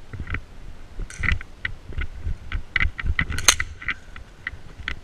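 Airsoft exchange of fire: a string of irregular, sharp clicks and snaps from gas pistol shots and BBs striking hard surfaces, the loudest about three and a half seconds in. Low thumps of movement run underneath.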